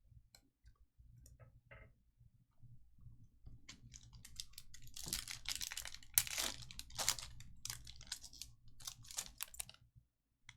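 Crinkling and rustling of trading-card pack wrappers and cards being handled, sparse at first and busiest from about four seconds in until near the end.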